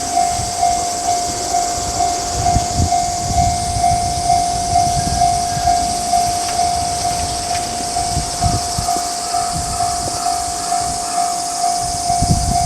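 Electronic railroad crossing alarm sounding a single tone that pulses about twice a second, over a passing JR Yokohama Line train with its low rumble and wheel thumps.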